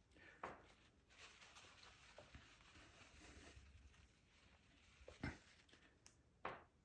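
Near silence, with the faint soft rubbing of a crumpled paper towel wiping a whiteboard and three light taps.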